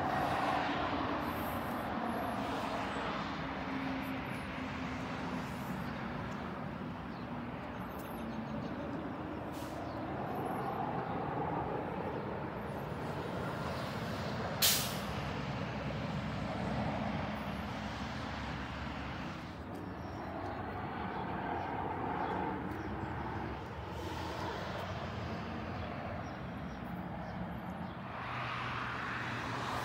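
Steady rumble of vehicle traffic that swells and fades as vehicles pass, with one short, sharp hiss about halfway through.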